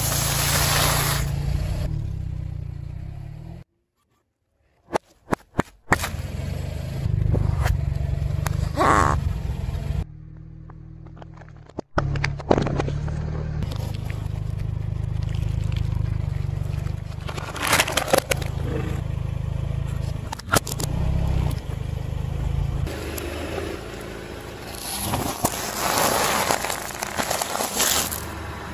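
A car tyre rolling slowly over and crushing a series of objects on asphalt, starting with crunchy corn puff snacks. Crunching, crackling and scraping sit over the low steady running of the car, cut into separate short takes with a brief silence about four seconds in.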